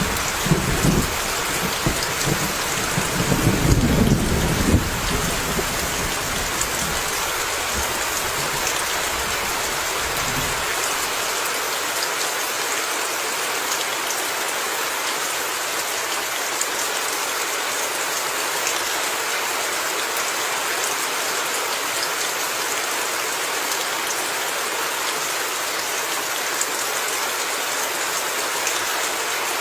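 Steady rain falling, with a low rumble of thunder over the first few seconds that fades away by about ten seconds in.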